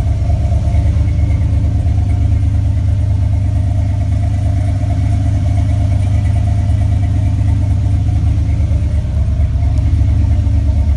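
LSX V8 engine idling unevenly with a misfire. With the injectors tested and compression good, the owner takes the misfire for a bad ignition coil.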